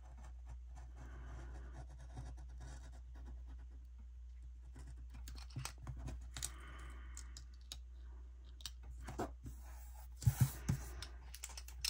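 Craft knife blade cutting a sticker strip on a paper page: soft scratchy cutting strokes, with a few sharp taps near the end.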